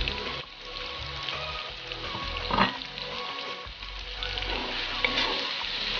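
Sliced onions and tomatoes sizzling as they fry in oil in a pan, with a brief louder noise about two and a half seconds in.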